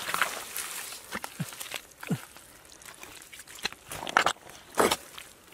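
Hands digging and squelching through thick wet mud, making a string of irregular wet sucking squelches, the loudest about four and five seconds in.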